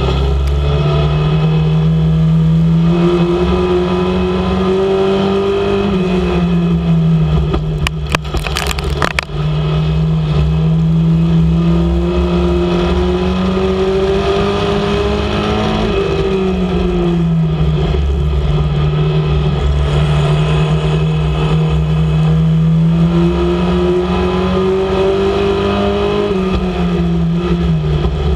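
Mini Stock dirt-track race car's engine heard from inside the cockpit over a low rumble, its pitch climbing steadily under full throttle down each straight, then dropping as the driver lifts for the turns, three times over. About eight seconds in there is a brief rattle of sharp knocks.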